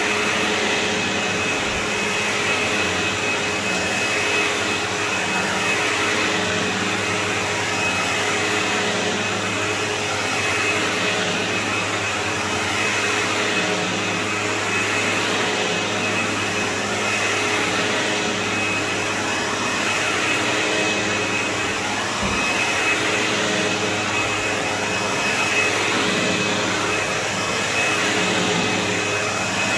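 Sebo X4 upright vacuum cleaner running as it is pushed back and forth over carpet: a steady motor whine and hum, swelling and easing slightly every couple of seconds with the strokes.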